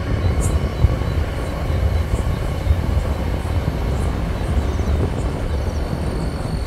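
Car driving along a rough, narrow country road, heard from inside the cabin: a steady low rumble of engine and tyres.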